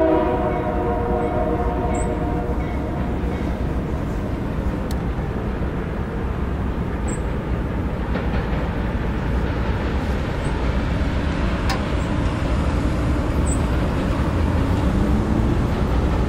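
Approaching Union Pacific diesel freight train: its air horn sounds at the start and stops about a second in, then the locomotives and wheels make a steady low rumble that grows a little louder near the end.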